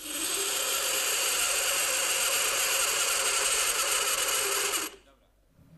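A metal block pressed onto dry ice, screeching steadily as the dry ice turns to gas against the warmer metal and sets it vibrating; it stops abruptly after about five seconds.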